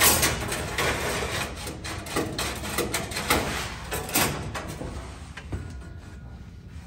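New brake line tubing scraping and clicking as it is pushed up through a pickup's frame rail: a busy run of scrapes and light knocks that gets fainter toward the end.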